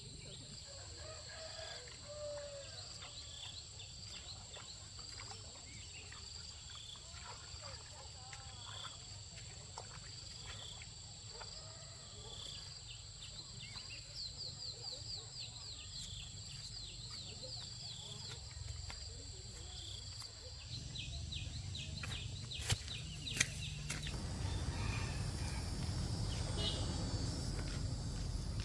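Chickens clucking over a steady high background chirring, with two sharp clicks near the end and a low rumble rising over the last few seconds.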